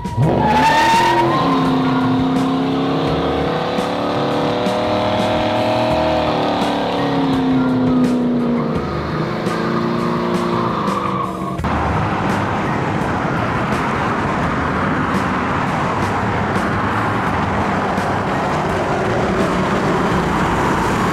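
Muscle car V8 revving hard in a burnout, engine pitch shooting up at the start and wavering as the rear tires spin and squeal. About halfway through, the sound cuts abruptly to a steady noisy rush.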